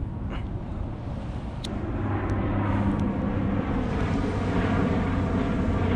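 A distant engine droning steadily, growing louder about two seconds in, with a few light clicks over it.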